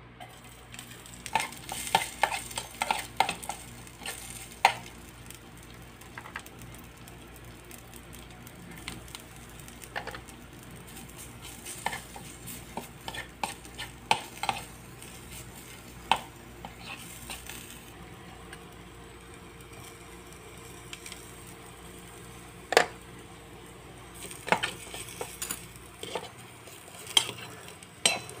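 A small metal spoon scraping and clicking against a miniature stainless steel pan while onion and garlic sauté in it, with a faint sizzle underneath. The clicks come in quick clusters near the start and again near the end.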